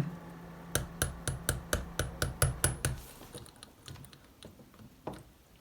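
Quick, light taps, about five a second for some two seconds and then a few fainter, sparser ones, as a press-fit part is driven down onto the shaft of a blend door actuator's small motor.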